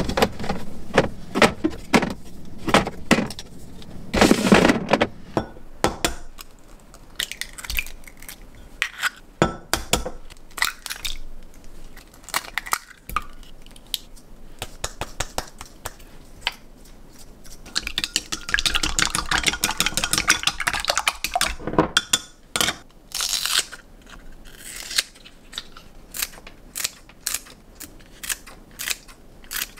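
Kitchen handling sounds: clicks and knocks of eggs and containers being handled and eggs cracked, then a few seconds of chopsticks rapidly beating eggs in a glass mug in the middle. Near the end, kitchen scissors snip a green onion in a quick run of sharp clicks.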